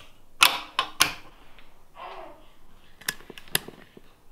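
Rocker light switches on a wall plate flicked with sharp clicks, three in the first second, then two clicks of a power strip's rocker switch a little after three seconds in. They are switches tried during a power outage, with nothing coming on.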